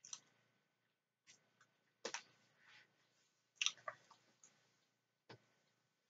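Mouth sounds of chewing a mouthful of creamy macaroni salad: about ten soft, wet clicks and smacks scattered irregularly, loudest around three and a half seconds in.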